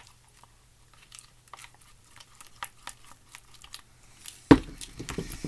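Clear-glue slime with activator being stirred in a bowl: a run of small sticky clicks and squelches, with one louder knock about four and a half seconds in.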